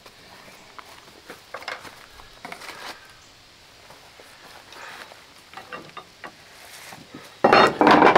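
Light footsteps and small knocks of lumber being handled, then a loud scraping rasp lasting under a second near the end.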